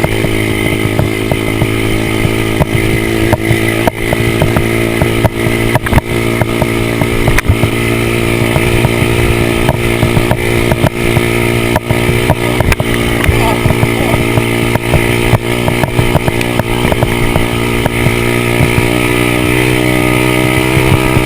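110cc Stomp pit bike's small four-stroke single-cylinder engine running at steady high revs while being ridden, with frequent short knocks over it.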